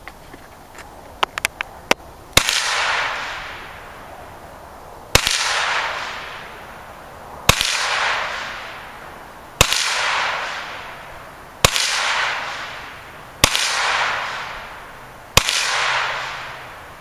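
Hi-Point 9mm carbine fired seven times, about one shot every two seconds, each report trailing off in a long echo. A few light clicks come just before the first shot.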